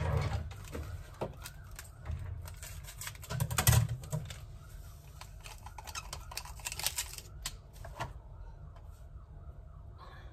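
Crockery and utensils handled on a kitchen counter while breakfast is made: scattered clicks, taps and light knocks of cups and a spoon. The loudest cluster comes about three and a half seconds in.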